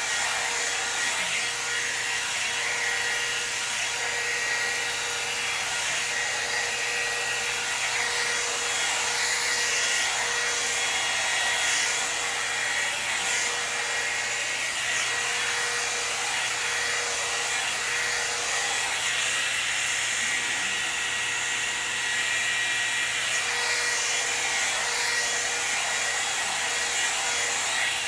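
Hot-air blow dryer brush running steadily, a constant rush of air with a steady motor whine, as it is worked through hair.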